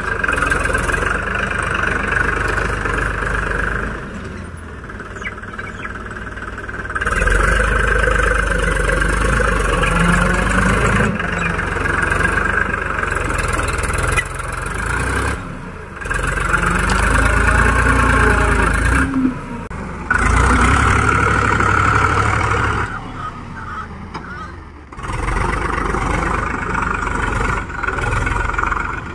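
Powertrac tractor's diesel engine running under load as it pulls a loaded trolley of earth through soft soil. The level jumps abruptly several times.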